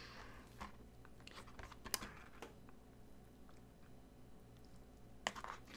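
Faint clicks and scrapes of an eating utensil against the dish as the loco moco's egg yolk is broken and a bite of patty, egg and rice is cut and gathered. The sharpest clicks come about two seconds in and near the end.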